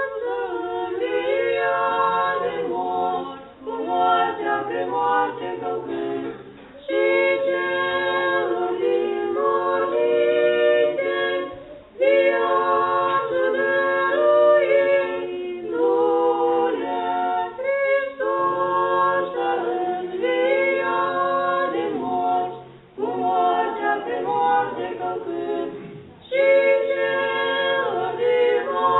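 Unaccompanied choir singing Orthodox liturgical chant, several voices holding sustained notes together in phrases a few seconds long, each ending in a short pause.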